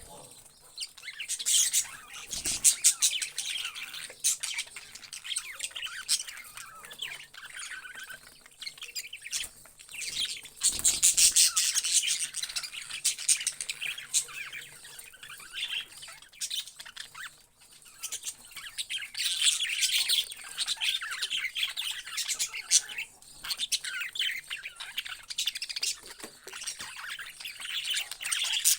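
Parrots chirping and squawking constantly, many calls overlapping, swelling into louder spells a few times.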